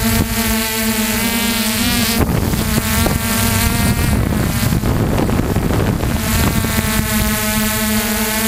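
Electric RC helicopter's motor and rotor heard from its onboard camera: a steady whine and drone with many overtones, wavering in pitch in the middle, with wind rushing over the microphone.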